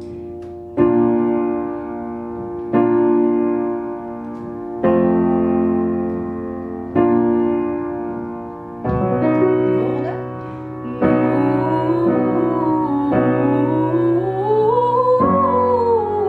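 Upright piano chords struck about every two seconds and left to ring. From about nine seconds in, a woman sings a long scale up and back down over the chords: a vocal warm-up scale exercise.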